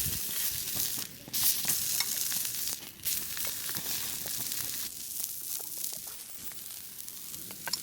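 Food frying and sizzling on an iron griddle over a campfire, a steady hiss that drops away briefly a few times.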